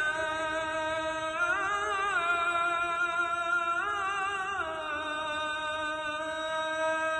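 A muezzin calling the adhan through a microphone and loudspeaker: one man's voice singing a long, drawn-out note without a break, swelling up in pitch in ornaments about a second and a half in and again around four seconds in.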